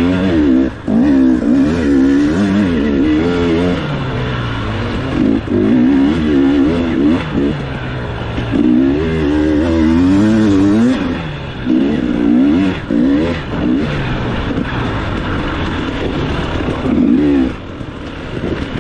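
Dirt bike engine revving in repeated bursts of throttle, its pitch wavering up and down, with short lulls between pulls as the rider eases off, riding a race course.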